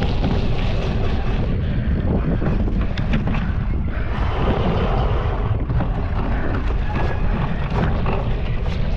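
Wind buffeting a GoPro's microphone while riding a cyclocross bike, with many small knocks and rattles from the bike over rough ground.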